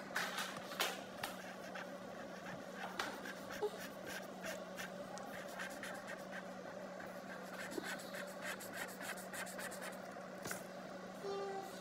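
A pencil scratching and tapping faintly on paper while drawing, with a steady low hum underneath.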